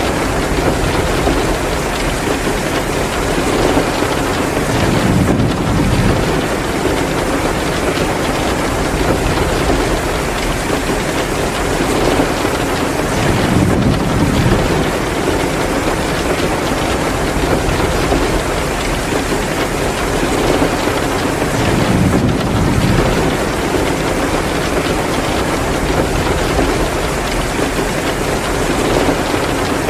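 Heavy rain pouring steadily as a dense, even hiss, with a low swell rising and fading about every eight seconds.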